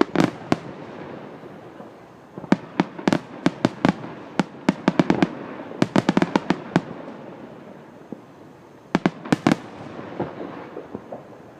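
Aerial fireworks bursting overhead: volleys of sharp bangs in quick succession, a few at first, then a dense run of rapid reports, a pause, and another short volley near the end.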